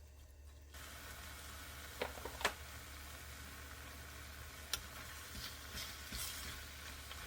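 Food frying in a pan, an even sizzle that starts suddenly about a second in, with a few light clicks of a utensil against the pan.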